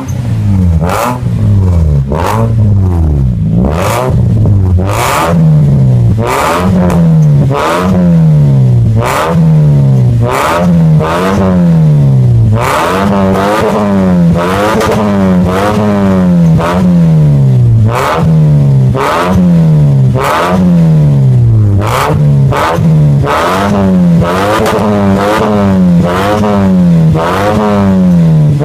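Toyota Vios four-cylinder engine blipped again and again through an aftermarket exhaust with a titanium J's FX Pro mini muffler and a stainless centre bullet resonator. Each quick throttle stab is followed by the pitch falling back toward idle, about once a second.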